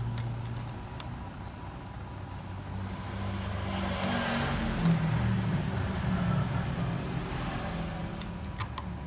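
A motor vehicle going past, swelling over a couple of seconds and fading away, over a steady low hum. A few small clicks come near the start and near the end.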